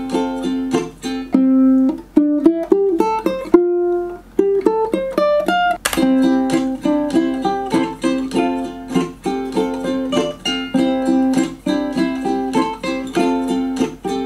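Solo ukulele playing a song: chords, then a run of single picked notes climbing step by step partway through, then regular chords again.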